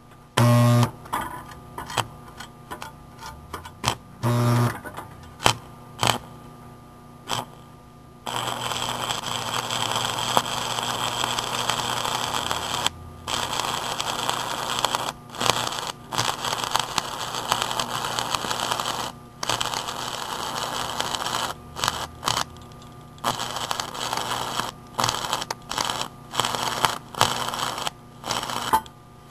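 Homemade microwave-oven-transformer stick welder striking an arc with a 6013 rod: short scratching sparks, some with a transformer hum. About eight seconds in the arc catches and runs with a steady crackle, going out and restriking several times.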